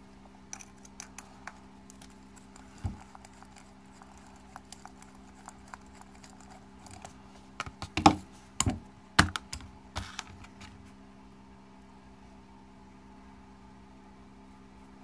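Light clicks and taps of an RC crawler tire and wheel being handled and worked with a small screwdriver. There is a single knock about three seconds in, and a cluster of louder knocks and clicks around the middle.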